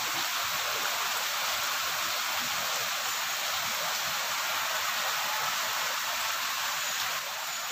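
Heavy rain pouring steadily on trees and plants, an even hiss that eases slightly near the end.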